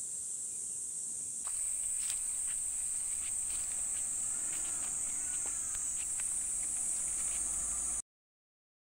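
Steady high-pitched insect chorus in woodland, with scattered footsteps on a dirt trail from about a second and a half in. The sound cuts off suddenly near the end.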